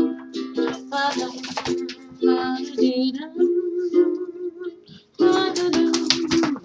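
Ukulele strummed in a Hawaiian-style song, its chords changing every second or so, with a brief break just before five seconds in.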